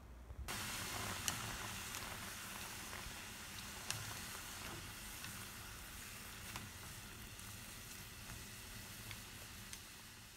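Pan of tteokbokki with cabbage, green onion and Vienna sausages cooking in sauce, a steady sizzle that starts suddenly about half a second in, with a few sharp clicks of the spatula against the pan.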